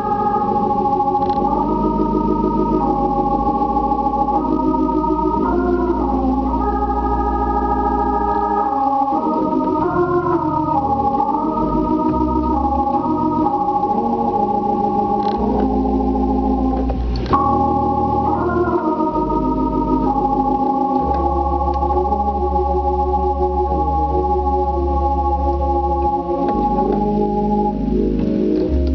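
Hammond B-3 organ played solo: sustained chords that shift smoothly from one to the next over long held bass notes, with a single sharp click about seventeen seconds in.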